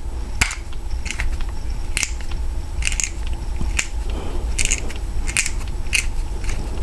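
Cutter of a hand-operated Klom tubular key machine being twisted into a tubular key blank, shaving metal with a run of irregular scraping clicks as it cuts a pin position down to depth.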